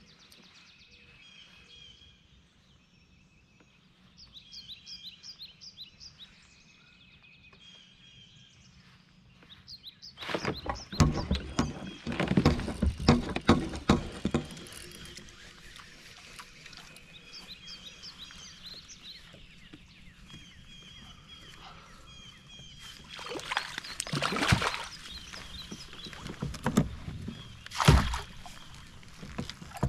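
Birds singing in the background, then a hooked bass splashing and thrashing at the surface beside a kayak for several seconds about ten seconds in. More splashing follows as it is netted near the end.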